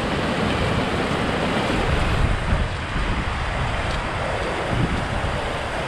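Steady rushing noise of wind and falling water, with wind gusting and buffeting the microphone.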